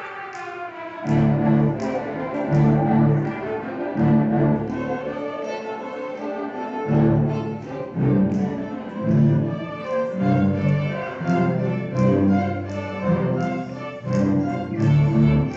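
String orchestra playing, with the cellos bowing a line of short, separate low notes under the higher strings.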